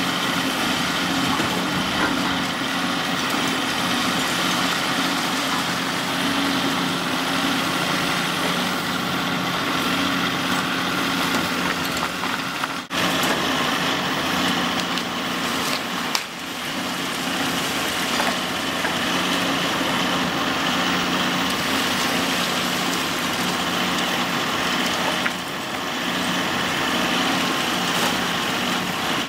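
Cat 349E excavator's diesel engine (a Cat C13) running steadily as the machine works, a constant engine hum under a wide, even hiss. The sound dips briefly twice near the middle.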